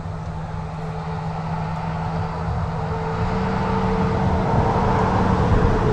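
A motor vehicle's engine running with a steady hum that grows louder throughout, its pitch stepping up slightly about three seconds in.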